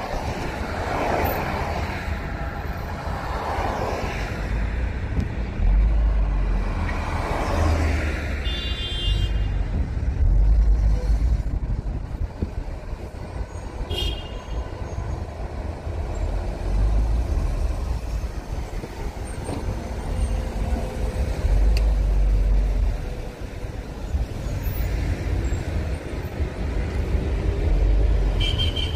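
Road traffic with a heavy low rumble: vehicles rush past three times early on, and short car-horn toots come about a third of the way in and again at the end.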